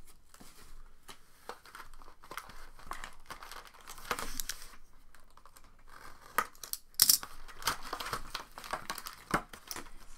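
Cardboard trading-card box being opened: crinkling and crackling of packaging, then a sharp rip about seven seconds in as a plastic box opener slits the lid seal.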